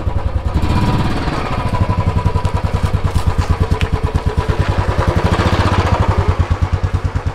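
Motorcycle engine running at low revs with a steady, even beat, a little louder for a moment about a second in.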